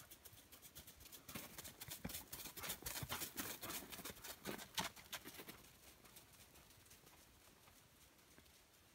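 Hoofbeats of a ridden horse on a snow-covered track: a quick run of footfalls that grows louder as the horse passes close by, loudest around four to five seconds in, then fades away.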